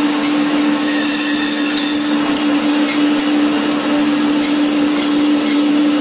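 Meat band saw running with a steady hum, its blade cutting through pieces of meat fed rapidly by hand.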